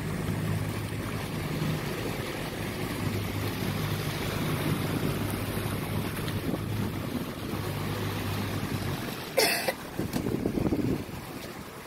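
Yamaha 150 outboard motor running steadily underway, a low even hum under wind buffeting the microphone and water rushing past the hull. Near the end the engine hum drops out and a sharp thump sounds.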